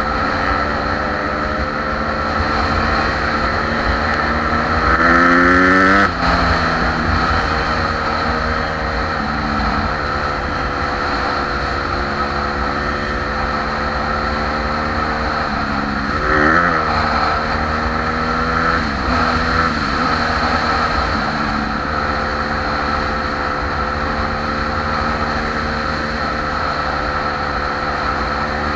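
Dirt bike engine running under way at a steady cruising pace. It revs up a few seconds in, then drops off sharply, and rises and falls briefly again later on. Wind rumble on the bike-mounted microphone sits beneath it.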